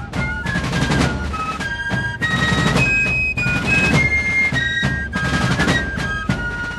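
Background music: a high flute melody over snare and bass drums with drum rolls.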